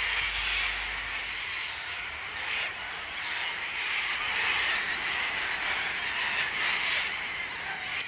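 A large flock of white cockatoos screeching together as it takes flight, a dense, unbroken din of overlapping calls with a low rush at the start.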